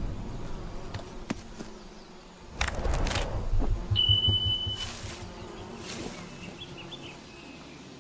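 Natural outdoor ambience with insects buzzing, a few brief rushing noises and a single held high bird-like note about four seconds in.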